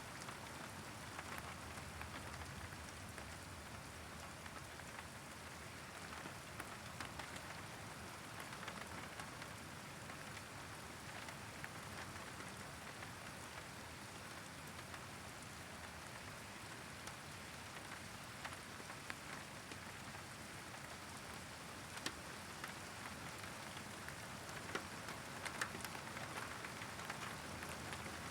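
Steady rain falling during a thunderstorm, with a few sharper ticks of drops striking something close by, mostly in the second half.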